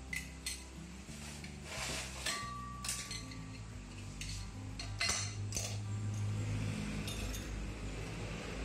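Steel automatic-transmission parts, clutch drums and housings, clinking and knocking as they are handled and set down on the workbench. Several separate knocks, one early on leaving a brief ringing tone.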